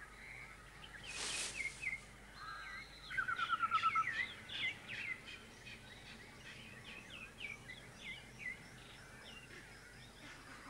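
Wild birds chirping and whistling: many short slurred calls throughout, with a fast trill about three seconds in and a brief hiss about a second in.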